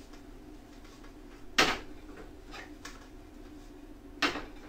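Two sharp knocks of a frying pan being handled on a gas stove, the first about a second and a half in and the second near the end, with a couple of faint clicks between them, over a steady low hum.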